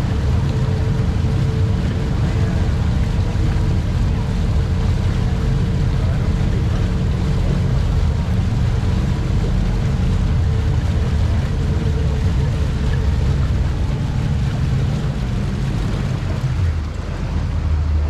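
Three Mercury Verado 600 hp V12 outboards running at low speed under joystick control: a steady deep engine rumble with churning prop wash, easing off slightly near the end.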